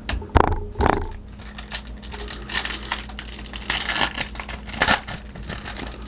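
Foil wrapper of a Topps Chrome baseball card pack crinkling as it is torn open and handled. A few sharp clicks come in the first second, and the crinkling is densest in the middle.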